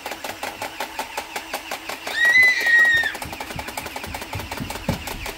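A fast, steady mechanical rattle of about ten clicks a second. About two seconds in, a high-pitched held squeal lasts about a second, and a couple of low thumps come near the end.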